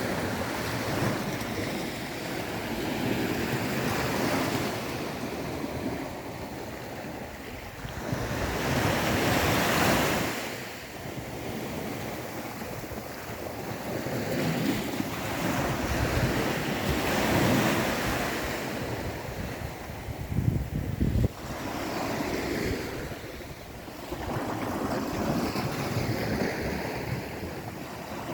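Indian Ocean surf: waves wash in and out in swells every few seconds, with wind gusting on the microphone. The surf is loudest about ten seconds in, and a few sharp low bumps from the wind come about twenty seconds in.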